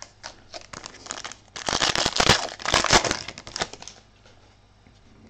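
Foil wrapper of a 2020 Prizm trading-card pack crinkling as it is torn open, loudest in a burst of about two seconds near the middle, after a few light clicks and rustles.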